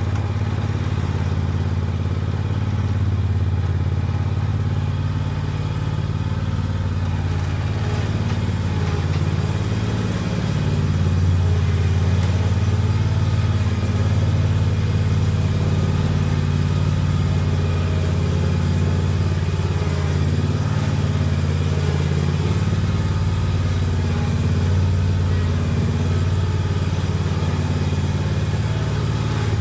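Hustler Raptor SD zero-turn mower's engine running steadily under way as the mower is driven, with small rises and falls in its note.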